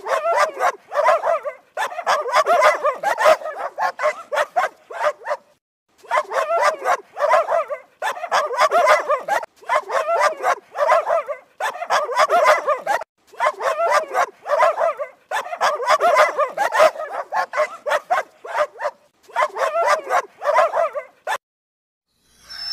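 Dogs barking in rapid runs of short, sharp barks, broken by brief pauses. The barking stops about a second before the end, and one short sound follows.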